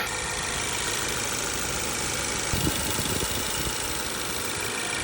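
Car engine idling steadily, with a brief low rumble about two and a half seconds in.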